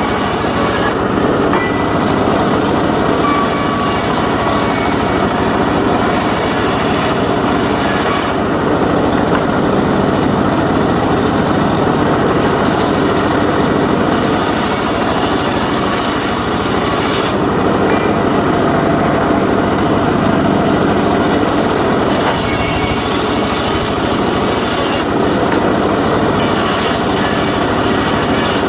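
Homemade engine-driven circular saw running steadily through jowar timber. Its sound turns abruptly brighter and then duller again every few seconds.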